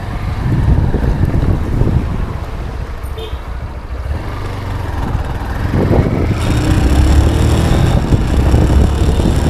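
Honda X-Blade motorcycle's single-cylinder engine running as the bike is ridden, its note climbing as it accelerates about six seconds in.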